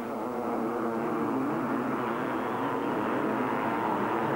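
500cc two-stroke motocross bikes racing on the track, their engines revving up and down in pitch and growing a little louder.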